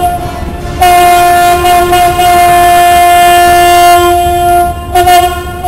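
A cruise ship's horn sounding its departure blasts as it leaves port: one long, steady blast of about four seconds, then a short blast near the end.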